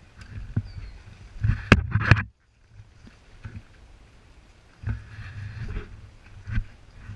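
Wind rumbling on the microphone outdoors, with a few sharp knocks about a second and a half and two seconds in. The sound cuts out briefly just after two seconds, then the wind rumble resumes with a few more light knocks.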